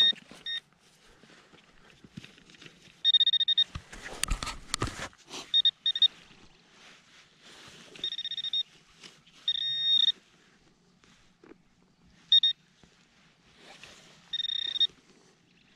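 Metal detecting pinpointer sounding in intermittent steady high beeps, some brief and some held about half a second, as it is probed around a dig hole for a deep metal target. A loud scraping of soil and digging about four seconds in.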